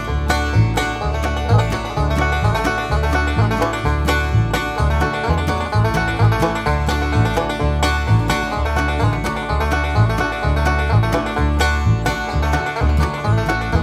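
Background music: upbeat bluegrass with a plucked banjo and guitar over a steady bass line.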